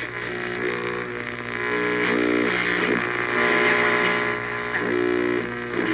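Music from an AM station playing through a Sonic CRX-7R clock radio's speaker, over a steady hum and hiss of interference. The owner puts the interference down to fans running in the next room.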